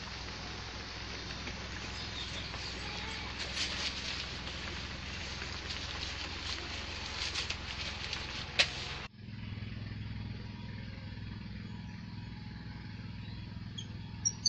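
Firewood burning in a traditional stove under a puttu steamer: a steady hiss with scattered crackles and pops. About nine seconds in it cuts off abruptly to a quieter low hum.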